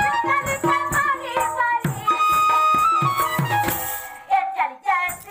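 Live Sambalpuri folk music for a Danda Nrutya dance: regular drum and jingling percussion strikes under a melody that holds one long note a little past the middle, then the music thins out briefly near the end.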